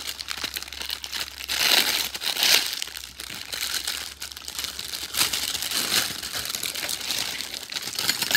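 Clear plastic packaging bag crinkling as it is opened and handled, with a run of short, irregular crackles, loudest about two seconds in.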